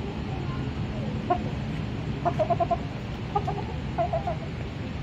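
Ruddy shelducks calling in short, clipped notes: a single call about a second in, then a quick run of about five notes a little past two seconds, and two shorter runs of notes later on.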